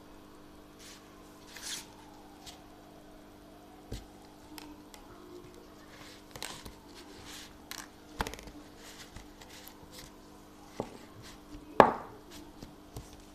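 Fluffy slime being stirred and worked with a metal spoon: scattered soft squishing and scraping sounds with clicks of the spoon, the sharpest about twelve seconds in.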